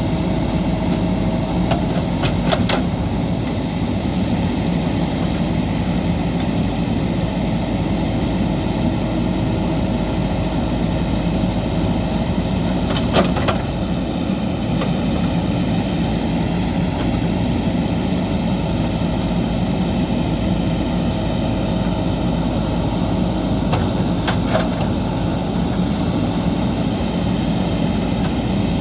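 JCB backhoe loader's diesel engine running steadily, with a few sharp knocks in three short clusters, the first about two seconds in, one near the middle and one near the end.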